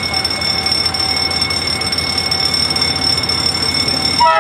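Level-crossing warning signal sounding a steady, high electronic ringing tone as a train approaches the crossing. A short burst of stepped tones near the end.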